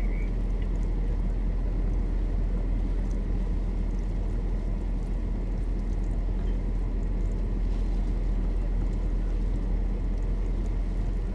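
Steady low rumble of an idling car heard from inside its cabin, even throughout with no distinct events.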